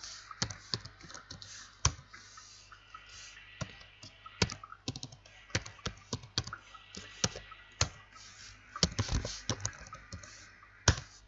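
Typing on a computer keyboard: irregular key clicks with short pauses between runs, as a username, a password and a short command are entered at a login prompt.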